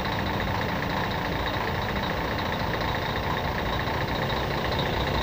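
Tour coach's diesel engine idling steadily while parked, with a faint steady high whine on top.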